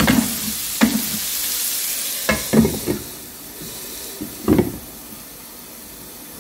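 Green beans, onion and red pepper sizzling in a frying pan while a wooden spoon stirs them, with several sharp knocks and scrapes of the spoon against the pan. The sizzle drops quieter about three seconds in.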